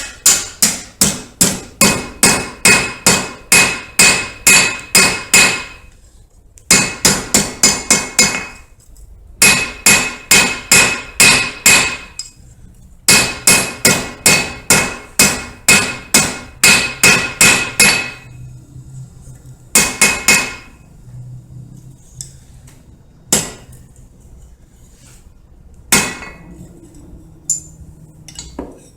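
Blacksmith's hammer striking a bar of 3/8-inch square mild steel on an anvil, forging the split bar flat into a cross. The blows come in fast runs of about three a second, each one ringing, broken by short pauses, with only a few single blows near the end.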